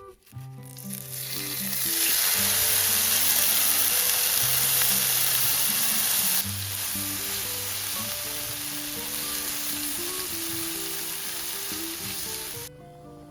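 Food sizzling hard in a hot pan over the camp fire, a steady crackling hiss. It swells up over the first couple of seconds, drops a little partway through and stops abruptly near the end.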